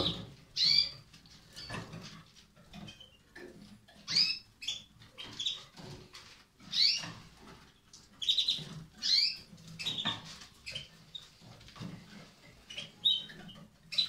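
Portuguese Harlequin canaries giving short, scattered chirping calls every second or two, with light tapping and rustling from the cage in between.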